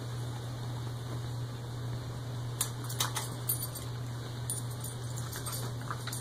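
Light metallic jingling and clicking from a dog and her puppy play-wrestling in a wire dog crate, with a few sharper clicks about three seconds in, over a steady low hum.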